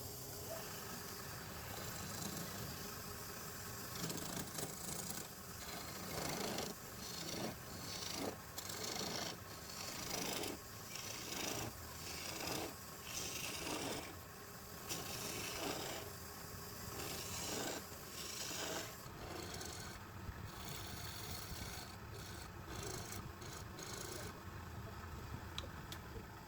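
A tool rasping or scraping against wood in a series of repeated strokes, roughly one a second, with the strokes thinning out near the end.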